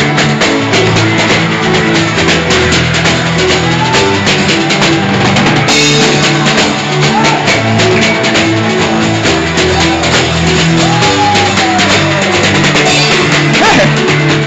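Band music playing continuously: a drum kit keeping a steady beat over held bass notes, with guitar.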